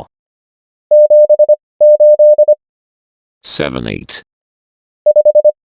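Morse code practice tone, a single steady mid-pitched beep keyed into dots and dashes at 25 words per minute character speed. Two digits are sent about a second in, the digits are then spoken, and another group of tones begins near the end.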